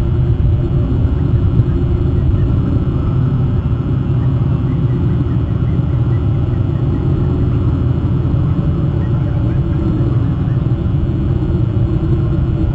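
Steady low rumble of wind buffeting an outdoor webcam microphone, a loud even roar without any pitched engine tone.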